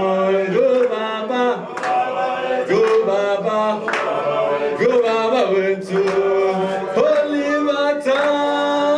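A man singing into a microphone with a crowd of voices joining in, an unaccompanied group chant praising Nelson Mandela on long held notes.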